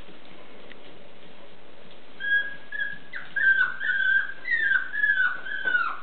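Miniature Pinscher puppy whining: a run of short, high-pitched whines starting about two seconds in, each ending in a quick drop in pitch.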